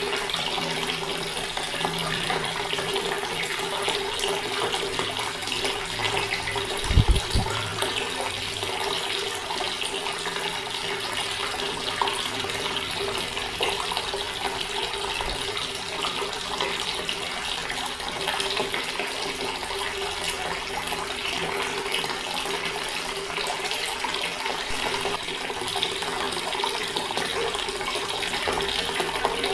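Water tap running in a steady, unbroken stream. A brief low thump sounds once, about a quarter of the way through, as the loudest moment.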